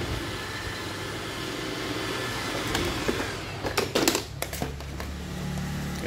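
Hard plastic clicks and knocks, a cluster a little after halfway, as a Roomba charging dock is handled and pushed into place against the robot vacuum, over a steady low hum.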